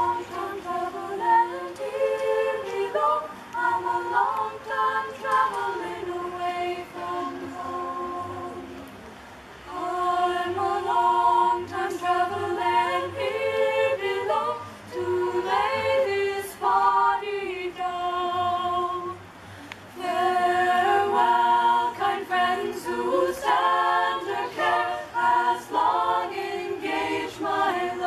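All-female a cappella group singing in several-part harmony with no instruments, in phrases broken by two short pauses about a third and two thirds of the way through.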